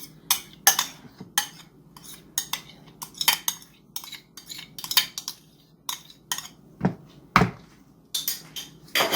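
A spoon repeatedly tapping and scraping against a bowl while yogurt is spooned out: a long, irregular run of sharp clinks, with a couple of duller knocks about seven seconds in.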